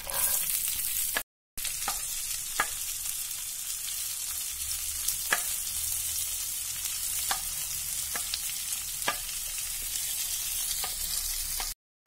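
Sliced shallots sizzling in hot oil in a nonstick frying pan, stirred with a wooden spatula that gives a few short knocks against the pan.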